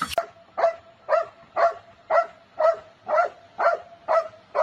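A dog barking over and over at a very even pace, about two barks a second, roughly nine in all.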